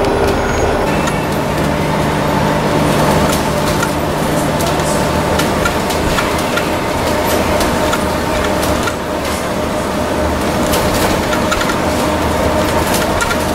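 Bus engine running and road noise heard from inside the moving bus, with frequent small rattles and clicks from the cabin. A low engine hum stands out for the first few seconds, then fades into the general noise.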